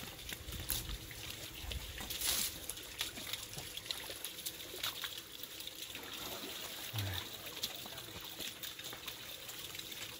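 Water trickling and splashing in a concrete trough as elephants move their trunks and legs in it, with a brief louder splash about two seconds in.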